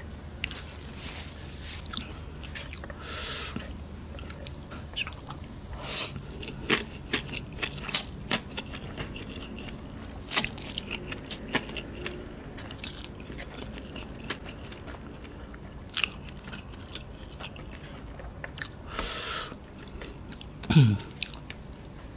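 Close-miked mouth sounds of eating firm instant noodles: wet chewing, smacking and slurping with many sharp clicks. A brief low falling hum near the end is the loudest moment.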